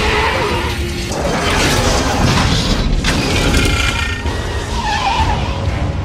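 Action-film chase sound mix: heavy trucks at speed make a dense, steady rumble of engine and road noise, with metallic crashes and scraping about a second in and again around three seconds in. A music score plays under it.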